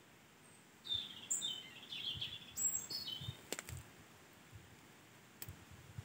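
A small bird singing one quick phrase of high chirps lasting about two seconds, followed by a couple of faint sharp clicks.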